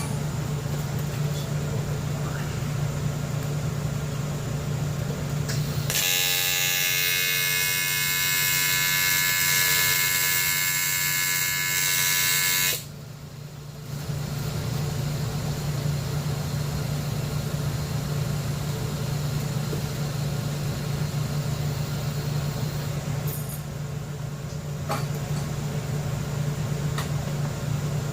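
AC TIG welding arc buzzing as an insert is welded into an aluminium motorcycle swingarm. The arc starts about six seconds in, runs for about seven seconds and cuts off suddenly. A steady machine hum runs under it throughout.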